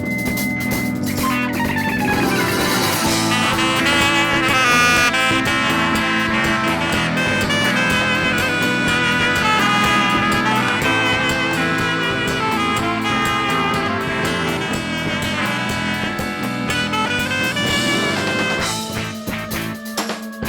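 Live band playing an instrumental passage: drums with guitar and a lead melody line, no singing.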